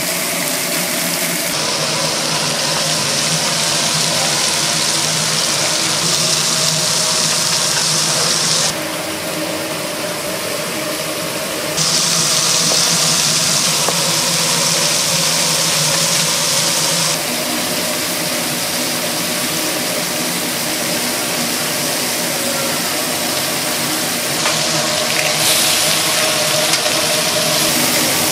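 Steady mechanical hum with a loud hiss over it. The mix changes abruptly several times.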